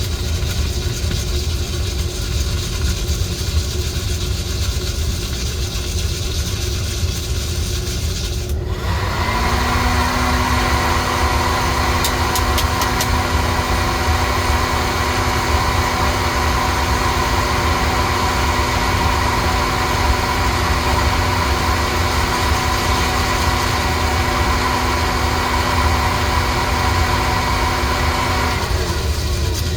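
Coffee roaster running with a steady low rumble. About nine seconds in, a steady hum joins it and holds until shortly before the end.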